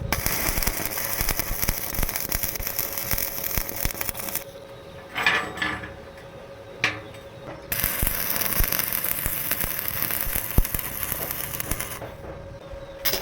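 Electric arc welding crackling in two runs of about four seconds each, with a short pause between them.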